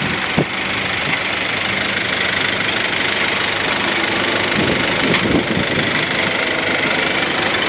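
SsangYong Actyon Sports pickup's 2.0-litre four-cylinder turbodiesel idling steadily, with a single short click about half a second in.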